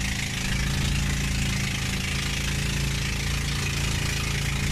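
Boat engine running steadily, its low, even drone under a constant hiss of wind and water.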